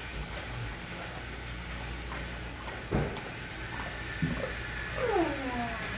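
Plastic Trackmaster toy track and engines being handled, giving a few light knocks over a low steady hum. A short falling tone comes a little after five seconds in.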